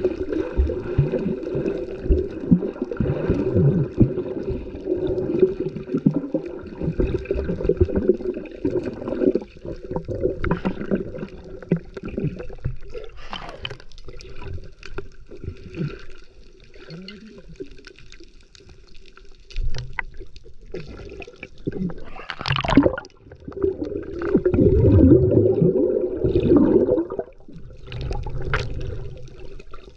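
Water gurgling and sloshing close to the microphone, with a louder stretch of churning near the end.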